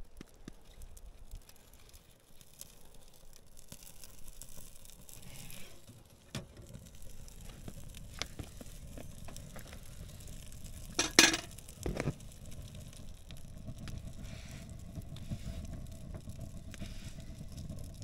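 A steady sizzle, with scattered light clicks and two sharp knocks about 11 and 12 seconds in.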